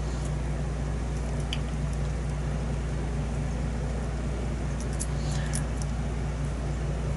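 Steady low hum and hiss, with a few faint light clicks from lock picks working the pins of a pin-tumbler challenge lock, about one and a half seconds in and again around five seconds in.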